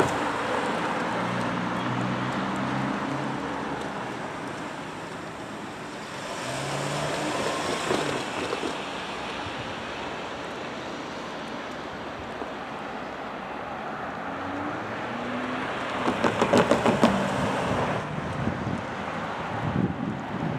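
Road traffic passing close by: car tyre and engine noise over a steady background hiss, swelling louder twice, about six seconds in and again near the end.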